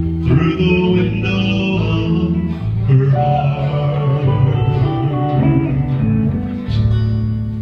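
Music: a guitar-led song with bass, chords changing every second or so, playing through its closing bars.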